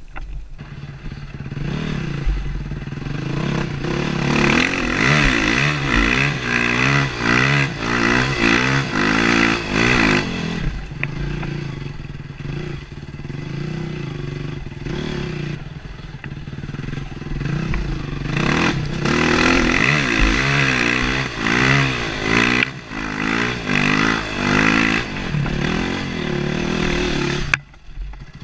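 Honda CRF450R's four-stroke single-cylinder engine revving up and down under load as the dirt bike climbs a loose gravel hill, heard from the rider's helmet. The engine sound drops away sharply near the end.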